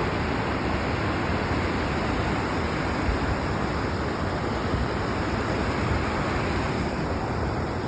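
Steady rushing roar of a waterfall: an even wash of falling water with no breaks.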